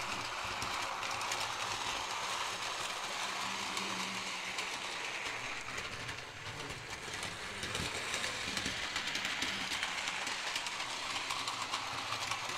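Battery-powered BNSF toy train from the USA Train Series set running on its plastic track: a steady, hissing train noise with a patter of small clicks. Its weak running is taken for pitiful.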